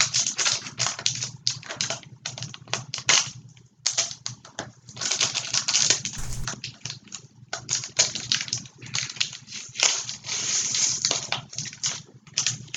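Trading card pack wrapper being torn open and crinkled by hand, an irregular run of crackling rustles.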